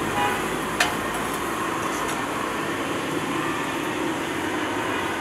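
Steady rushing background noise at a busy street food stall, with one sharp clink of a metal utensil about a second in.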